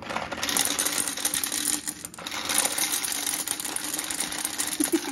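Small Dubble Bubble gumballs pouring from a cardboard carton into a glass gumball-machine globe: a dense, continuous clatter of hard candy balls hitting the glass and each other. There is a brief lull about two seconds in.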